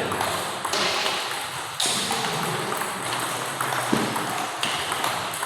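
Table tennis ball being hit in a rally: sharp, irregularly spaced ticks of the ball striking bat and table, a handful in a few seconds, over steady background noise.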